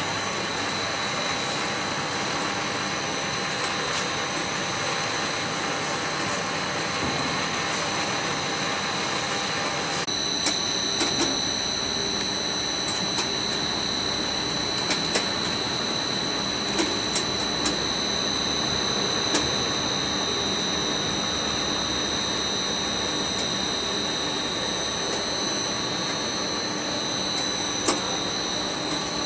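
FTPEG 1000 compound bubble film machine running: a steady machinery noise with a constant high-pitched whine, and a few light clicks in the second half.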